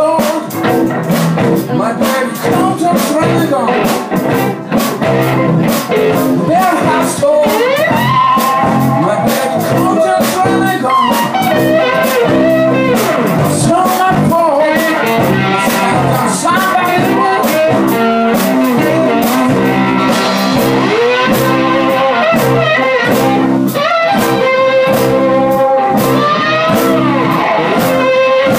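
A live blues band playing electric guitars, keyboard, bass and drums, loud and amplified. A lead line bends and slides in pitch over the band.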